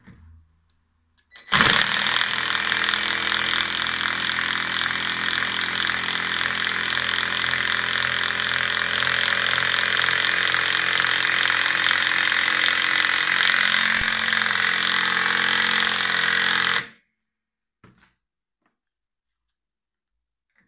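Cordless impact driver hammering as it drives a long wood screw into timber, a fast, even rattle of impacts that lasts about fifteen seconds and stops suddenly once the screw is seated.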